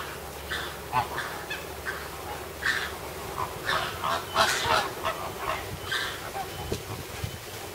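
A flock of greater flamingos honking, many short calls overlapping, busiest a few seconds in.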